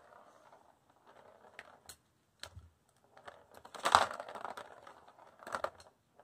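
Scattered clicks and taps from a plastic ball-track cat toy as kittens paw at the track and the ball inside, with the loudest clatter about four seconds in.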